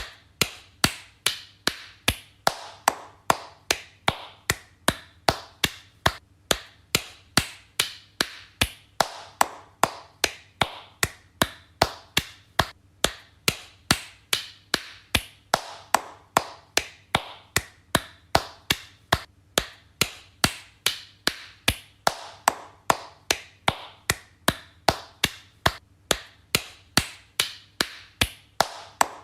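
Hand claps in a slow, steady rhythm, two to three claps a second, each a sharp separate clap.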